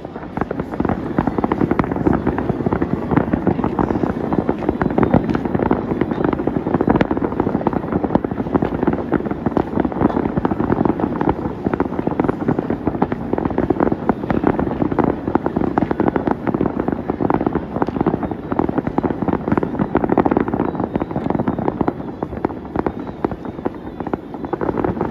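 Fireworks display: a dense, continuous run of rapid bangs and crackles overlapping one another.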